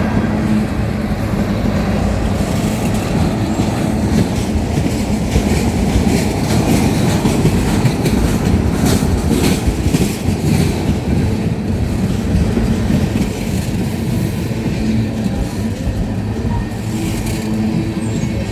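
Freight train cars rolling past: a steady rumble of steel wheels on rail with clickety-clack over the joints and a few sharp clanks around the middle and again near the end.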